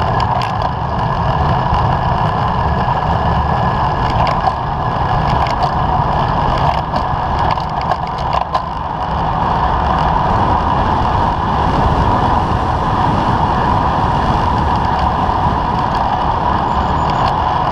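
Steady rush of wind on the microphone and tyre noise on asphalt from a bicycle rolling along a road, with a few short clicks between about four and nine seconds in.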